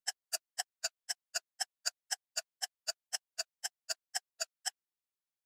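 Ticking sound effect: a steady run of short, even ticks at about four a second, like a clock, that stops shortly before the end.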